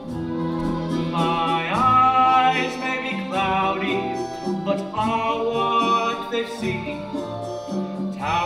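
Opera singing with instrumental accompaniment: sung lines sliding between held notes over a steady backing.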